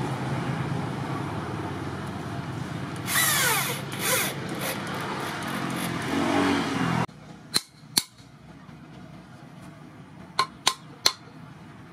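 Hand-held electric drill running and boring into a wooden sword handle, louder for about a second as the bit bites about three seconds in. It stops abruptly about seven seconds in. A hammer then knocks on the handle: two sharp taps, then three more near the end.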